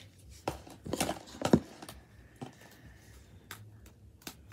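Plastic slime containers knocking and clattering as they are handled and put away: a quick run of knocks in the first second and a half, then a few lighter clicks.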